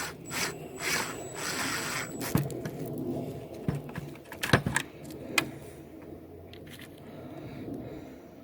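Scraping and rattling of metal parts and tools being handled while the gate opener is put back together, with several sharp knocks about midway.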